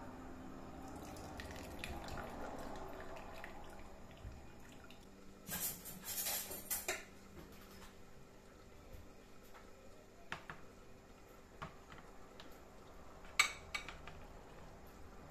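Grated courgette being squeezed by hand, its juice dripping into a ceramic bowl, with bowls being handled on a wooden board: a louder rustling, splashing stretch about halfway and a sharp clink of crockery near the end.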